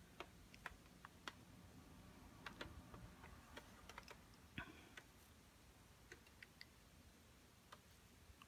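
Faint, irregular light clicks and ticks, with one slightly louder click about halfway through.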